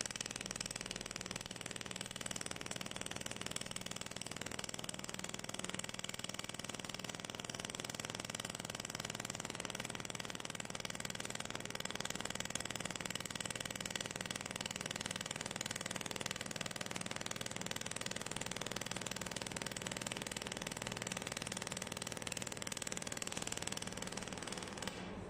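Handheld fiber laser welding machine at work on stainless steel: a steady hiss with a faint machine hum underneath, which drops away just before the end.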